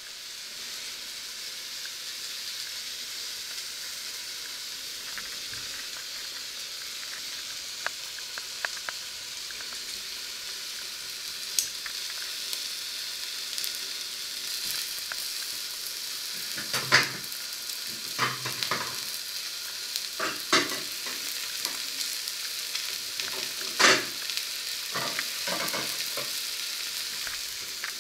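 Eggs frying in a pan under a mesh splatter screen: a steady sizzle, with sharp crackling pops that come more often in the second half.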